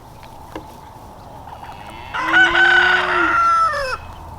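Rooster crowing once, starting about halfway through: one loud call of nearly two seconds that drops in pitch at the end.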